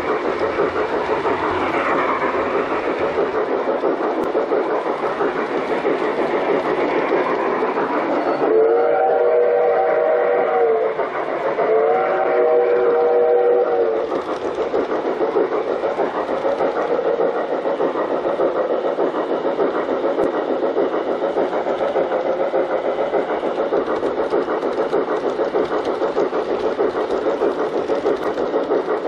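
G-scale model steam train running steadily along the track, its wheels giving a continuous rattling roll on the rails. About eight seconds in, two long steam-whistle blasts of several notes together sound one after the other.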